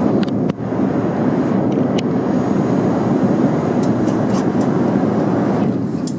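Steady cabin noise inside an Airbus A380, a dense rumble of engine and airflow noise, with a few faint light clicks.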